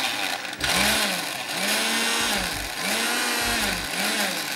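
Electric blender chopping a load of fresh parsley, cilantro, onion and garlic for chimichurri sauce in short pulses, the motor speeding up and slowing down about four times. It is pulsed so the sauce stays coarse rather than a smooth paste.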